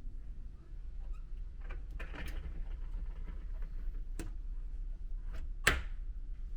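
A few sharp clicks and knocks, as of fittings being handled, the loudest near the end, over the steady low hum of the ferry's engines.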